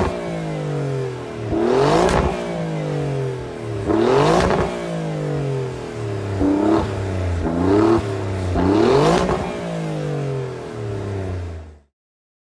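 Alfa Romeo Giulia Quadrifoglio's 2.9-litre twin-turbo V6 revved through its exhaust five times, each rev rising sharply and falling back toward idle. The sound cuts off suddenly near the end.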